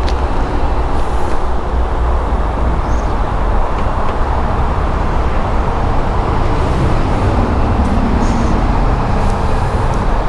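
Steady low rumble of a motor vehicle, with a few faint clicks.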